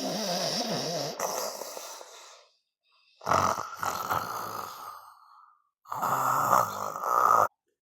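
A man snoring loudly: three long, rasping snores, each one to two and a half seconds, with short silent gaps between them.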